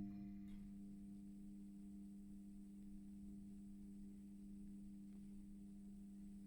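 Fluorescent tube light humming steadily: a low electrical buzz, with a faint high-pitched whine joining about half a second in. It starts out of the tail of a sharp switch-on click.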